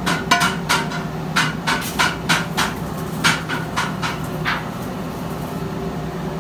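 Sharp, irregular metal clanks of a steel tractor wheel rim being handled and taken off a lathe, about fifteen in the first four and a half seconds, over a steady machine hum that carries on after the clanking stops.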